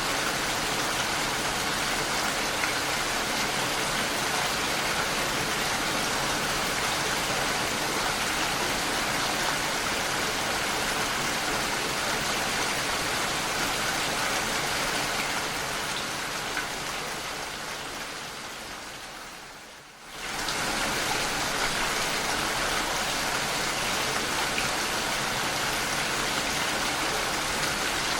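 Steady, dense rainfall. About two-thirds of the way through it fades down over a few seconds and then comes back suddenly at full strength.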